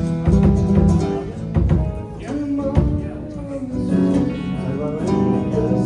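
Acoustic guitar strummed and played in chords, with a voice faintly along with it.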